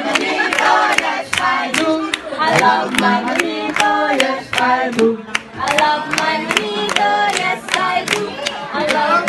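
A group of young people singing together and clapping along in a steady rhythm, about two to three claps a second.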